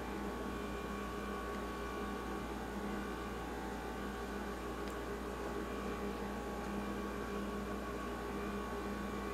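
A steady hum with a hiss under it, an even drone of several held tones that does not change, with one faint click about five seconds in.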